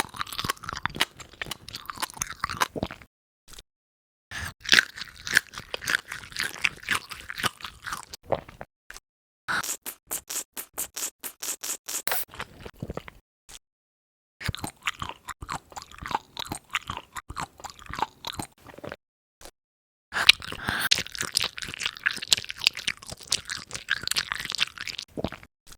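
Close-up ASMR eating sounds of crunching and chewing seafood, in about five bouts broken by short silences. The middle bout is a quick, even run of sharp crunchy clicks.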